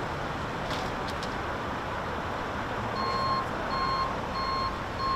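A vehicle's reversing alarm beeps four times at an even pace, starting a little past halfway, over steady idling-vehicle noise.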